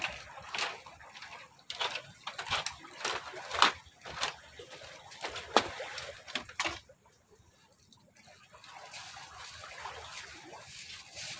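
Water splashing irregularly with sharp knocks, settling into a softer steady wash of water for the last few seconds.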